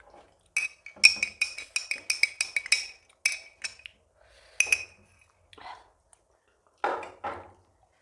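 Metal utensil clinking and scraping against metal dishes: a quick run of ringing clinks for about two seconds, then a few single clinks. Near the end come two duller, lower knocks.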